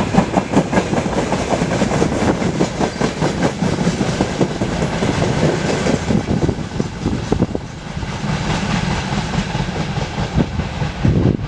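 Long freight train of open-top wagons rolling past, its wheels clicking rapidly over the rail joints. About two-thirds of the way through the clicks thin out as the last wagons go by.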